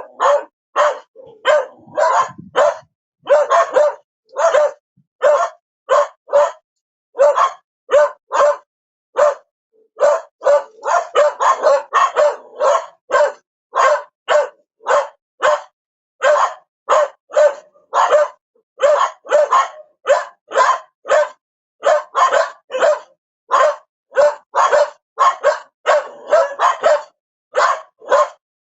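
A dog barking over and over: short barks, singly and in quick runs of two or three, with brief silent gaps between them.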